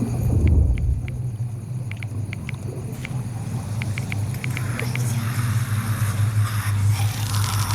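Low steady rumbling drone from a horror film's sound track, with a louder boom about half a second in and faint scattered clicks above it.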